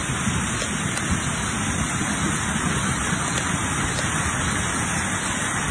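Floodwater rushing and churning past in a steady, unbroken wash of water noise.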